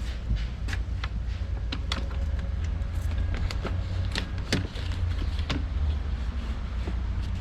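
Scattered clicks and taps of car door parts being handled during reassembly of a rear door, over a steady low rumble.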